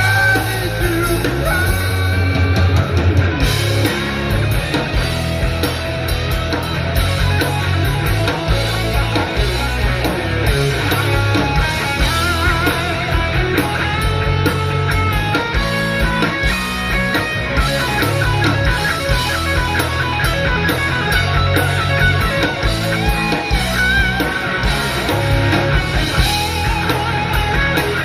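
Live rock band playing a song, with guitar over a steady bass and drum backing.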